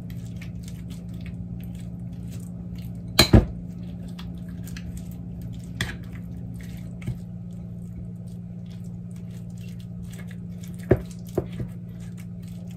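Metal spoon stirring chopped dates soaked in milk in a ceramic bowl, with scattered clinks of the spoon against the bowl. The loudest is a pair about three seconds in, and a few lighter ones come later. A steady low hum runs underneath.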